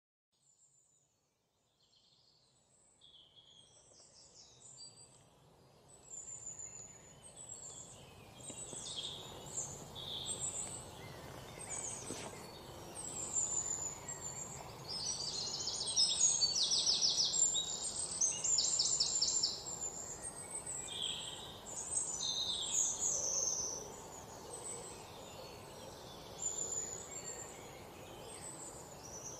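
Many birds chirping and trilling over a steady background hiss, fading in from silence over the first several seconds.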